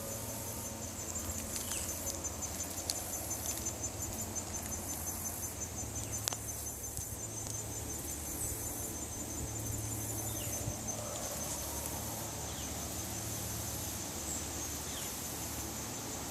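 Insects trilling outdoors: a steady, high, evenly pulsed trill that runs on without a break, typical of a cricket.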